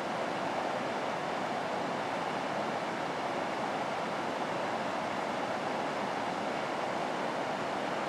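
River rapids: a steady rush of fast water tumbling over rocks, even in level throughout.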